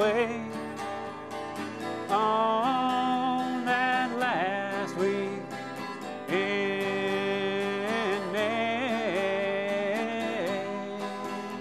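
Two acoustic guitars strummed while a man sings long, wavering held notes without clear words.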